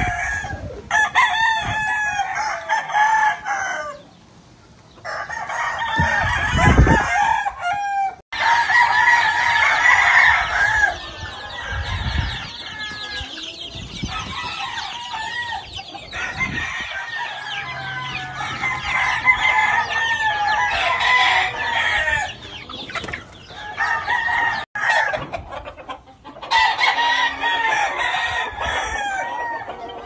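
Many gamefowl roosters crowing over one another, with hens clucking. There is a short lull about four seconds in and a brief low rumble a few seconds later.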